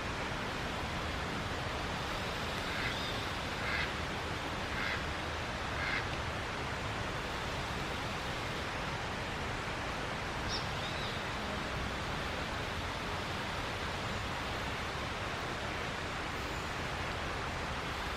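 A goose chick gives four short peeps about a second apart, then a single higher peep a few seconds later, over a steady rushing background noise.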